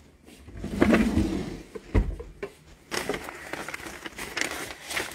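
Handling noise from a phone being moved about: irregular rustling and scraping, with a sharp knock about two seconds in.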